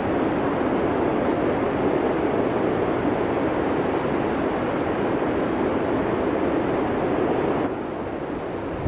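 Steady rushing blizzard wind, a dense even noise with no distinct events. Near the end it changes abruptly to a quieter, thinner hiss, as at a cut between recordings.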